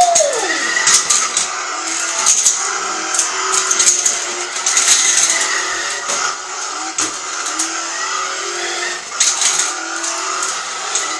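Remote-control Monster Jam Grave Digger toy truck driving across a tiled kitchen floor: its electric motor whines as it speeds up and slows, its wheels rattle on the tile, and there are sharp knocks now and then as it bumps into things.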